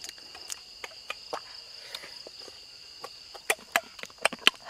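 Steady chorus of night crickets, two continuous high trills, with scattered sharp clicks and smacks from eating roasted goose meat, the loudest near the end.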